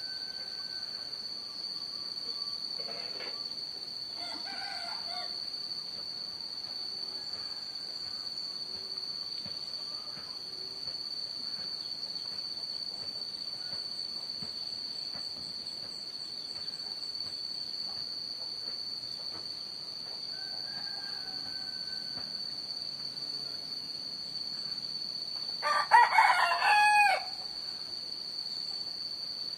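A rooster crows once, loud and pitched, near the end. Under it runs the steady high-pitched drone of insects, with a few faint bird calls.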